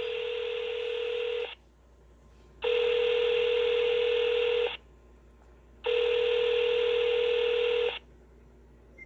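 Telephone ringback tone of an outgoing call heard over the phone line: three rings about two seconds long, a second or so apart, before the call is answered.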